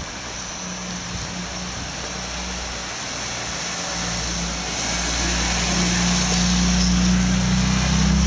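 Wiesmann MF3 roadster's BMW straight-six running at low revs as the car rolls slowly past, its engine note growing louder from about halfway through, with tyre noise on wet tarmac.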